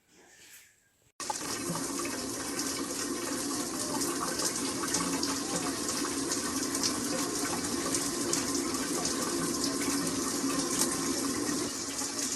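Shower water spraying steadily, an even hiss of falling water that starts abruptly about a second in.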